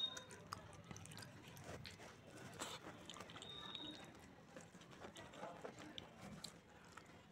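Faint close-up eating sounds: fingers squishing and mixing rice with palak paneer gravy on a plate, with many small wet clicks scattered throughout.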